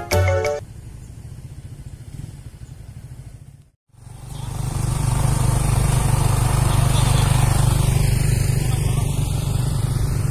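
Last notes of background music, then after a brief cut a motor vehicle's engine running steadily, a constant low hum with road or wind noise.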